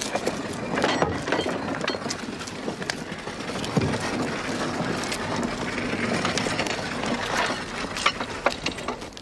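Busy clatter of knocks and clinks from objects being handled and carried, over a steady background din with a low hum.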